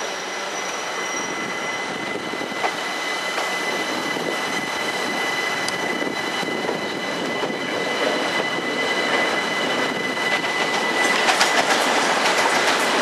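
Train wheels running on rails, with a steady high-pitched squeal over the running noise, growing louder, and a quick run of clicks over rail joints or points near the end.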